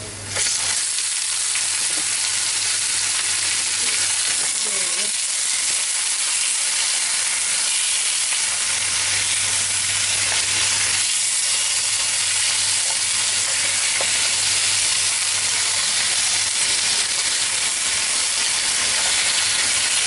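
Raw chicken pieces hitting a hot pan of caramelized sugar and garlic, setting off a sudden loud sizzle about half a second in that carries on steadily as the meat fries in the caramel.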